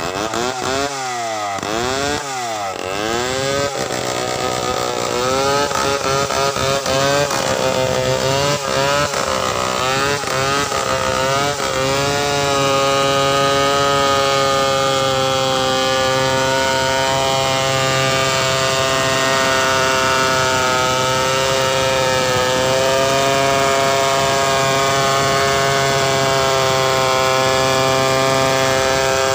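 Stihl two-stroke chainsaw revved in quick up-and-down surges for the first dozen seconds. It then runs steadily under load, ripping lengthwise along a wooden board.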